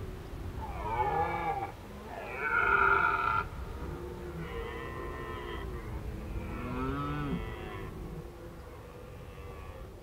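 Red deer stag giving its rutting roar: a series of long, deep calls, the loudest about three seconds in, growing fainter near the end.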